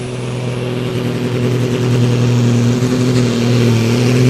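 Super Sport class pulling tractor's tuned diesel engine running hard, a steady drone that grows louder over the first two seconds and then holds.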